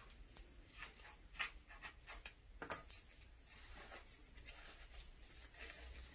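A terry cloth towel rubbing and scuffing over the plastic lower frame of a Springfield XD9 Tactical pistol as it is wiped clean. The faint, irregular brushing strokes are loudest about a second and a half and nearly three seconds in.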